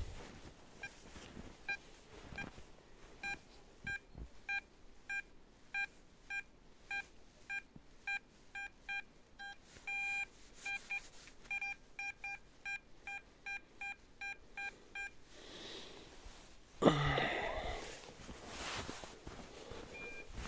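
Metal detector giving its target signal: a run of short, same-pitched beeps, about two a second, with one longer beep about ten seconds in. A loud scrape comes near the end.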